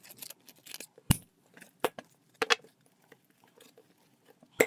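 Paper cash envelopes and a small ring binder being handled: light rustling and scraping broken by a few sharp clicks, the loudest about a second in and just at the end.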